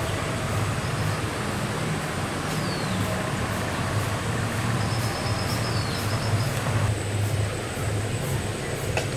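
Steady low rumble over an even outdoor hiss, with a short falling whistle about two and a half seconds in and faint high chirping around five seconds in.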